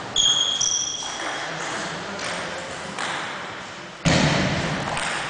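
Table tennis point in a sports hall: a high squeak, likely a sneaker on the wooden floor as a player lunges, rings for about a second near the start, followed by a few faint ball taps. About four seconds in there is a loud single thump.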